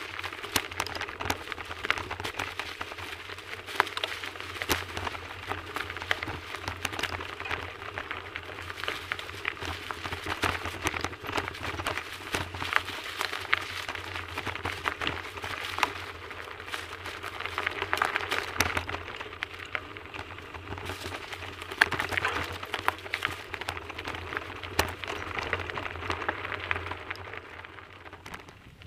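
Bicycle tyres rolling over a dirt track covered in dry leaves: a dense crackle of leaves and grit with frequent sharp clicks and rattles, easing off near the end.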